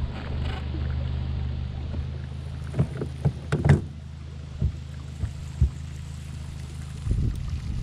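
Steady low hum of a boat motor running, with a scatter of short sharp knocks against the boat a few seconds in and again near the end.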